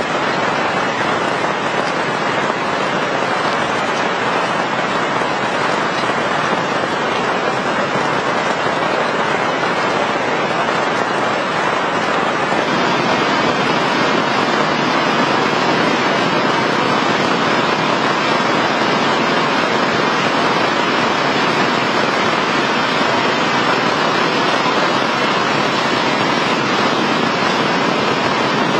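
Heavy rain falling steadily, a dense, even hiss that grows a little louder about twelve seconds in.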